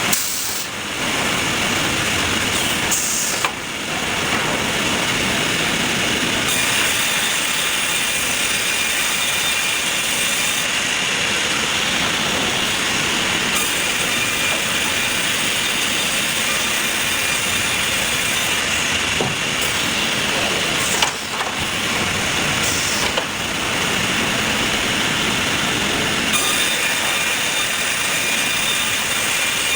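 Sawmill machinery running: a loud, steady mechanical noise with a high whine that comes and goes, broken by a few brief dips.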